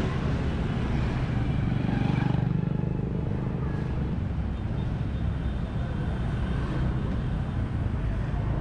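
A motor engine drones steadily over outdoor traffic noise, swelling briefly about two seconds in.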